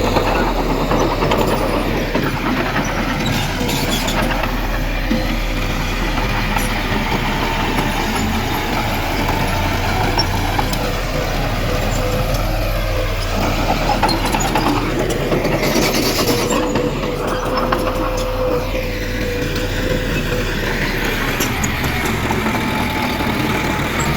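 Heavy diesel earthmoving machinery running steadily, with a short rushing noise about two-thirds of the way through.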